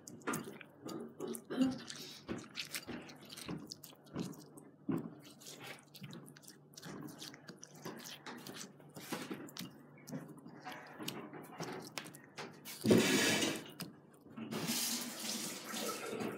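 A hand squishing and rustling fish fillets through a wet, milk-soaked breadcrumb mix in a ceramic bowl, with many small scrapes and squelches. About 13 seconds in there is a brief, louder rush of noise.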